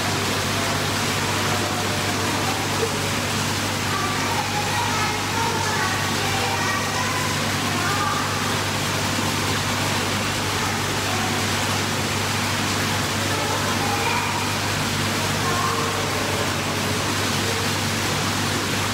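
Steady rushing water noise from a swimming pool, with a constant low hum beneath it.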